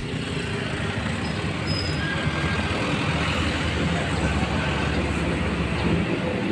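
Steady outdoor background noise: a continuous rumble and hiss with no distinct events, of the kind heard beside a road.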